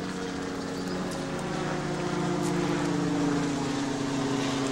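A motor running steadily, its pitch and level rising slightly about two seconds in.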